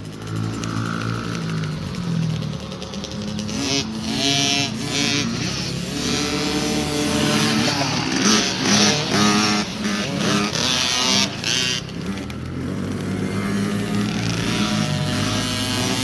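Several small kids' pit bike engines running on the race track, revving up and falling back again and again as the riders accelerate, shift and back off through the turns.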